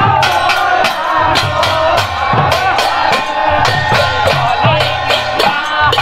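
Devotional procession music: a group singing with khol barrel drums played on the march. Sharp, steady beats about three to four a second run under the singing.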